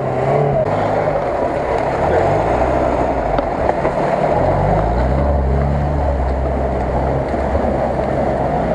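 UAZ-469 off-roader's engine working under load through a flooded mud bog, revving up about two and four seconds in, then holding loud and steady.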